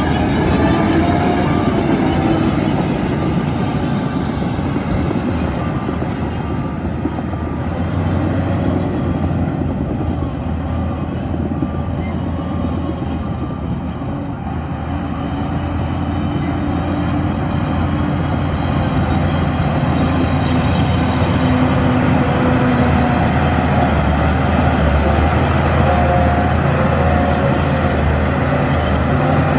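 Shantui bulldozer's diesel engine running under load, its pitch shifting as the machine works, with a reversing alarm beeping near the start.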